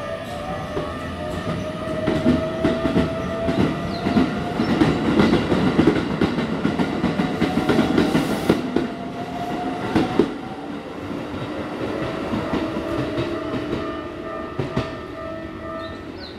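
Keikyu 600 series electric train pulling out and accelerating: its GTO VVVF inverter whine climbs slowly in pitch over wheel rumble and the clatter of rail joints, then fades as the train draws away.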